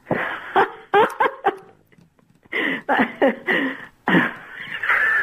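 A woman laughing and squealing in three bursts, heard over a telephone line, as she realises the call was a prank.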